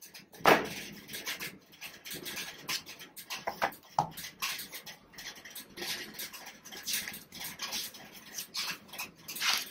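Cardboard phone box, insert tray and paper wrapping being handled: irregular rustling and scraping, with a sharp knock about half a second in.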